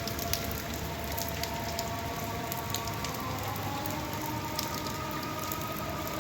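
Steady rain hissing, with individual drops ticking sharply on a nearby surface now and then, over a few faint steady tones in the background.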